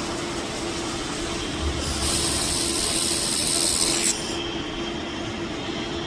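BTW-12 handheld fiber laser welder: a steady machine hum, and from about two seconds in a loud hiss while the weld fires, lasting about two seconds and cutting off suddenly.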